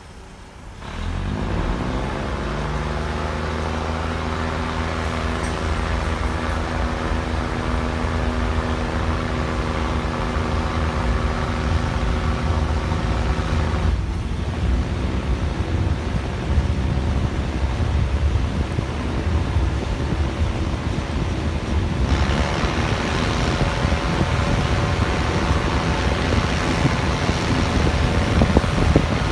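RHN diesel railcar's engine opening up as the train pulls away, its note rising over the first couple of seconds and then holding steady under a rumble of wheels on rail. The engine note breaks off briefly about halfway through and again later, then picks up again.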